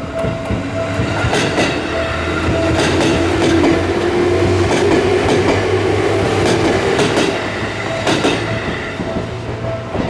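Electric commuter train passing over a level crossing, its wheels clacking over the rail joints and a whine swelling and fading about midway, loudest in the middle. The crossing's warning bell rings on underneath.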